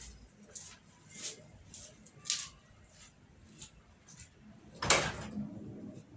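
Faint scattered clicks and handling noises, then one louder short clunk about five seconds in, followed by a faint low hum.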